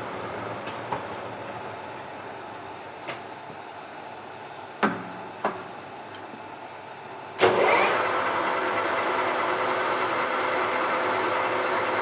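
Mori Seiki MS-850 engine lathe: the spindle running noise dies away while a few sharp knocks sound, then with a loud jolt about seven seconds in the 3.7 kW spindle drive starts and the spindle runs steadily with an even hum.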